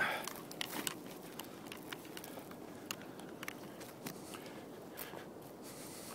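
Footsteps on dry grass and stony ground: a string of irregular light ticks and crackles, with one louder brief rustle at the very start.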